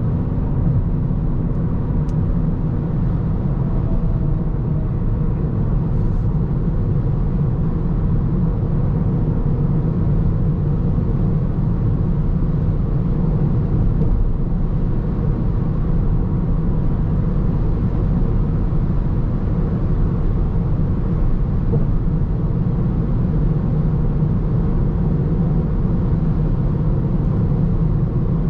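Steady in-cabin drone of a Toyota Corolla Touring Sports 2.0 Hybrid cruising on the motorway: tyre, wind and drivetrain noise, heaviest in the low end.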